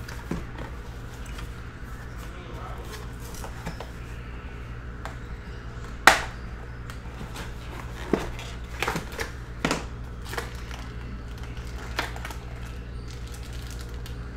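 Cardboard box being handled and opened by hand: scattered sharp taps and knocks, the loudest about six seconds in, over a steady low hum.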